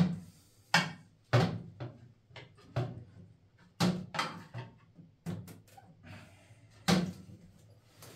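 Irregular sharp knocks and clunks, about nine in eight seconds, from a toilet seat and its hinge fittings being handled and pushed into place. The loudest knock comes right at the start.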